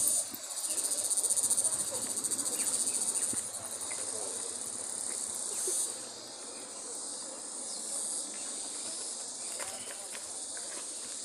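Insects chirring in the trees: a steady high-pitched buzz that pulses rapidly for the first few seconds and swells now and then.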